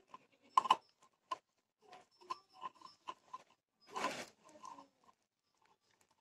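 Small metallic clicks and scrapes of a screwdriver turning a screw on the casing of a flour-mill motor, with a sharp click about half a second in and a short rasping scrape about four seconds in.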